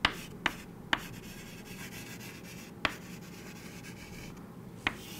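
Chalk writing on a chalkboard: five sharp taps of the chalk striking the board, three in the first second and two more later, with soft chalk scraping between them.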